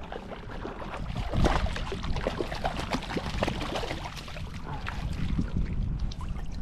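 Hooked shad thrashing and splashing at the surface beside a kayak, in many short irregular splashes over a low rumble of wind on the microphone.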